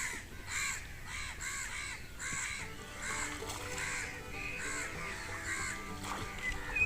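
A crow cawing over and over, about two short caws a second. Background music with steady tones comes in about halfway through.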